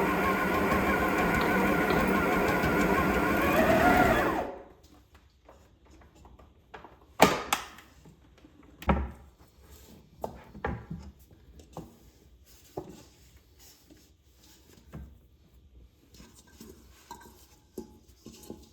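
A motor runs with a loud, steady whirr and cuts off suddenly about four seconds in. Scattered light knocks and clicks follow.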